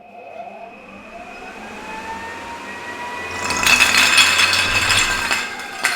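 Ryobi 40-volt battery backpack blower spinning up with a rising whine and a strong rush of air for a couple of seconds, then starting to spin down near the end.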